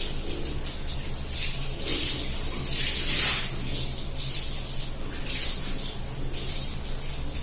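Tap water pouring onto long hair and splashing, in uneven surges that are loudest about three seconds in, over a steady low hum.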